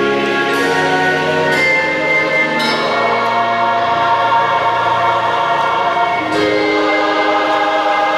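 Slow music of long held chords with no words. The chord changes about a second in, twice more within the next two seconds, then holds until a change past the six-second mark.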